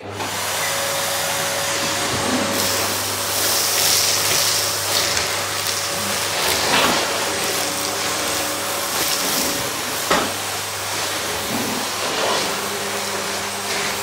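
Bosch Series 2 bagged vacuum cleaner running steadily, its hose nozzle sucking crumbs off a fabric couch cushion: a constant hiss over a steady motor hum. There are a few sharp clicks, about seven and ten seconds in.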